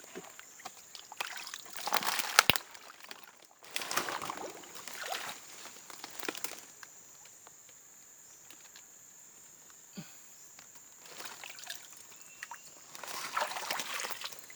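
Water sloshing and splashing in a small stream, in several short bursts separated by quieter stretches, over a steady high-pitched insect drone.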